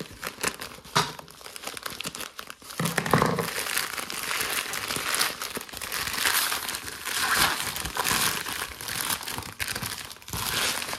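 A USPS mailer bag crinkling and rustling continuously as it is handled and pulled open by hand, with many small crackles, getting busier about three seconds in.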